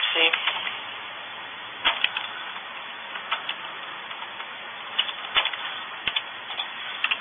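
Computer keyboard keys clicking in short irregular clusters over a steady hiss.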